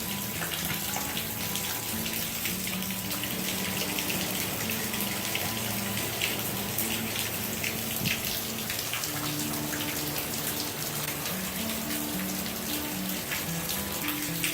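Steady hiss of light rain in a constant wind, with many small drop ticks, under soft background music whose low notes step along slowly.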